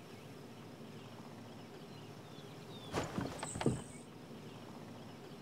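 Quiet outdoor ambience with a faint steady hiss. About three seconds in, it is broken by a short cluster of sharp knocks and a brief high-pitched buzz.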